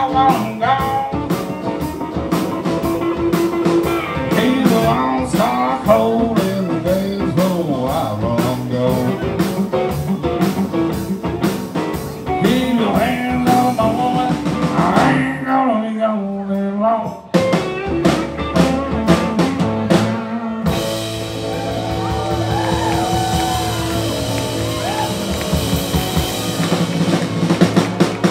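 Live country band playing: a male singer with electric guitar, acoustic guitar, upright bass and drums. About twenty seconds in, the drumbeat stops and the band holds a long sustained chord.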